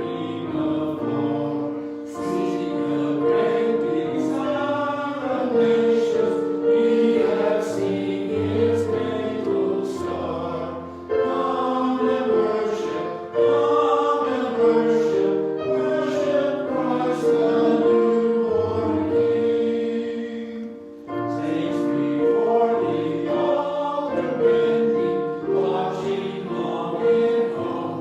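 A choir singing a hymn in several parts, with held notes and short breaks between phrases.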